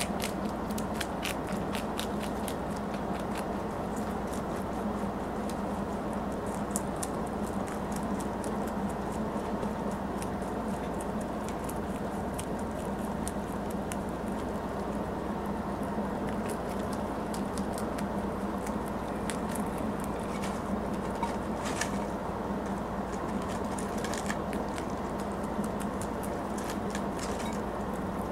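Pet rabbit chewing kale: quick runs of small crisp crunching clicks, denser at some moments and sparser at others, over a steady low hum.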